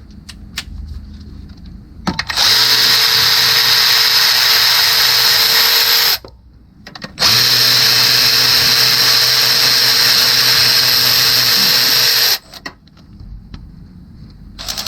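Power tool with a socket on an engine bolt, running steadily in two runs of about four and five seconds with a short break between. The socket is a 15 mm where a 13 mm is needed, so the bolt does not come out.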